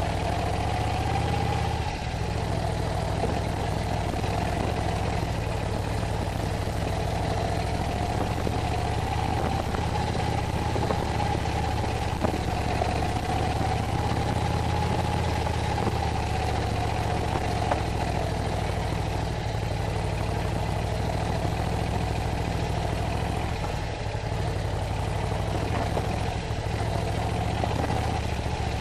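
Harley-Davidson touring motorcycle's V-twin engine running steadily at low speed, heard from the bike itself.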